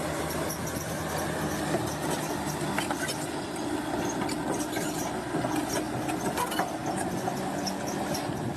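Crawler bulldozer at work: its diesel engine runs steadily, with metallic clanking and squeaking from the steel tracks.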